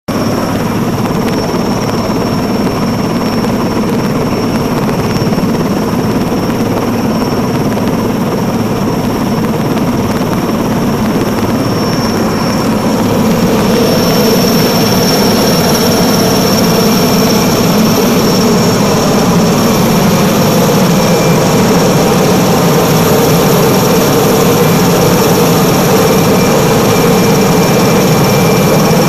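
Helicopter in flight, its engine and rotor running loud and steady, growing a little louder about thirteen seconds in.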